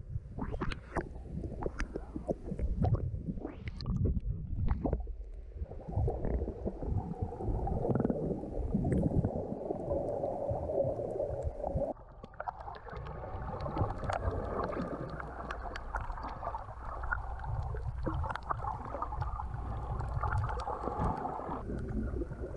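Water splashing and sloshing against an action camera at the surface for about the first five seconds. After that comes the dull, muffled rumble and gurgle of the camera's microphone underwater.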